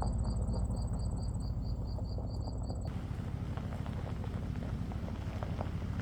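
Insects chirping: a high, pulsing chirp about five times a second over a steady high trill and a low rumble. About halfway in it cuts abruptly to a broad crackling, rustling noise with scattered clicks.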